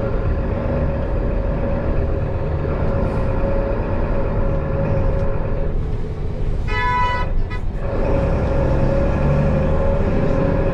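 Steady drone of a Mercedes-Benz city bus underway, heard from inside, with a constant hum. About two-thirds of the way through, a vehicle horn sounds briefly.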